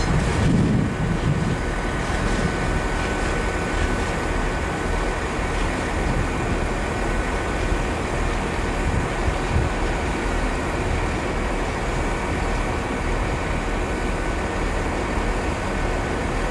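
A train running steadily: a constant rumble with a faint high whine above it.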